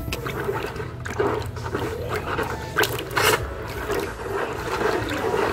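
A hand swishing and splashing a small amount of water in a plastic bucket, stirring to dissolve fertilizer granules. Irregular sloshing with a few sharper splashes.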